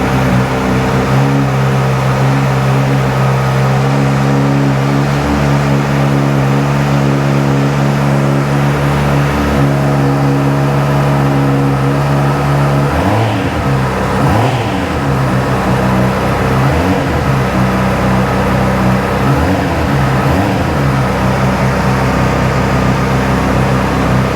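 Honda CBR600's inline-four engine with the standard exhaust, running at a steady idle. From about halfway it is blipped several times, the revs rising and falling back to idle.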